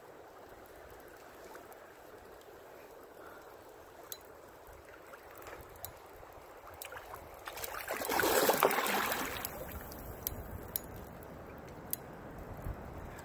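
River water running and gurgling steadily, with a few faint clicks. About eight seconds in, a louder rush of noise rises and fades over roughly two seconds.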